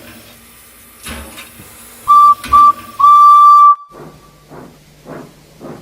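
Steam locomotive whistle sounding two short toots and then one long blast, which cuts off abruptly. Steam chuffing then starts at a steady beat of about two chuffs a second over a low steady hum, as a steam engine sets off.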